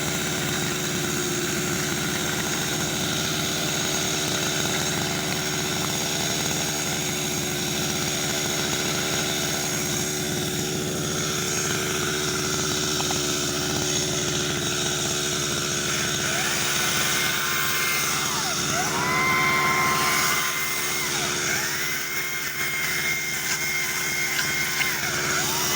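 Chainsaw engine running steadily, then revved up, held and let back down several times over the last ten seconds or so.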